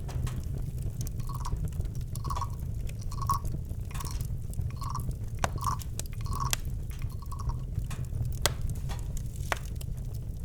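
Campfire crackling, with scattered sharp pops over a steady low rumble. Through it a short call of one pitch repeats about once a second from an animal.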